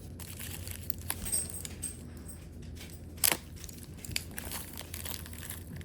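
Small clicks and light handling noise as fluorite crystal towers are unwrapped and handled, with one sharper click of stone about three seconds in.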